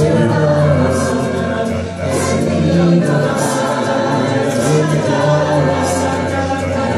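A large mixed a cappella vocal group singing in close harmony over a steady sung bass line.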